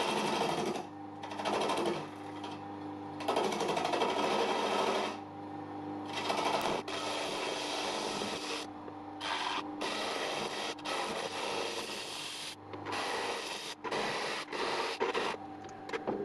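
Wood lathe motor humming steadily while a bowl gouge cuts the spinning base of a dry end-grain wooden bowl, a series of scraping cuts each lasting a second or two, with short breaks between them.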